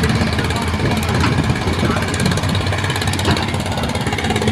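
Excavator's diesel engine running steadily at a low hum, with a few faint knocks.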